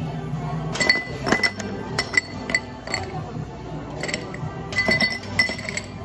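Ice cubes dropping into tall drinking glasses: a series of sharp clinks, each with a ringing glass tone, starting about a second in.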